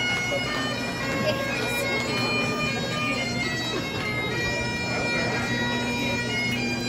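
Bagpipes playing a tune over steady held drones.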